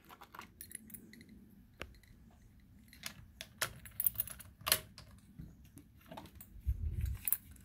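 Small steel tools being handled: irregular light metallic clicks and taps as a set of stud pullers is picked over, with a dull thump near the end.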